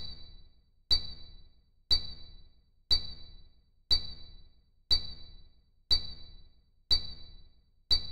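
Countdown sound effect: a short, high electronic beep with a low thud under it, repeated once every second, nine in all, each ticking off one second of a digital clock countdown.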